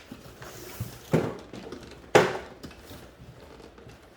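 Toy and its packaging being handled and set down: two sharp knocks about a second apart, the second one louder.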